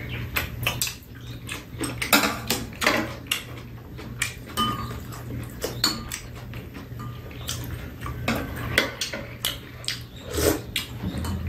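Metal spoons and chopsticks clinking and scraping against ceramic bowls during a meal: scattered light clicks, over a steady low hum.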